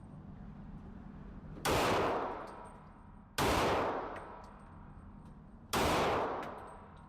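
Three single gunshots from a firearm being fired at a range, spaced about two seconds apart, each followed by a long fading ring.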